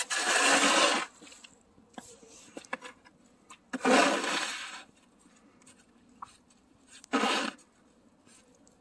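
Snow shovel scraping through wet, heavy snow on pavement, three strokes a few seconds apart.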